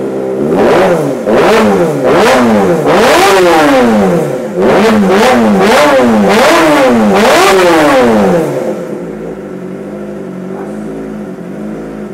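Kawasaki ZX25R's 250 cc inline-four engine, through a freshly fitted Arrow Pro Race titanium exhaust, revved in a string of quick throttle blips, the pitch rising and falling roughly once a second. It settles back to a steady idle about three-quarters of the way through.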